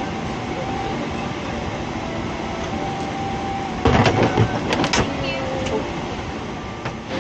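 Steady hum of an airliner cabin's air system, with a few loud knocks about four and five seconds in as overhead luggage bins are pushed shut.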